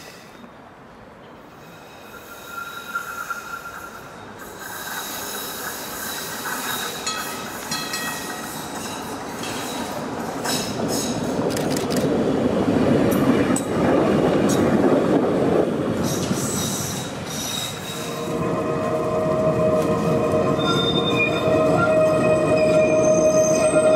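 Vintage electric trams on museum track. An HTM PCC tram approaches and rolls past, its wheels rumbling on the rails and growing loudest about halfway through. In the last few seconds a yellow RET tram's wheels squeal steadily on a curve, the loudest sound.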